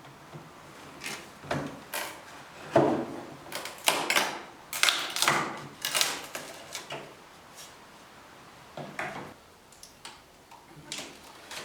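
Irregular knocks and scrapes of hand work on wood, busiest in the middle stretch, with a few scattered knocks near the end.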